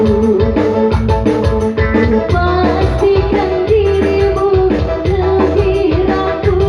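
Dangdut band music playing: a steady bass and drum beat under a held melody line, with quick even ticks of high percussion on top.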